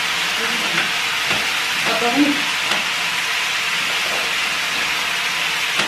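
Food frying in a pan on a gas stove: a steady sizzling hiss, with a few light utensil clicks.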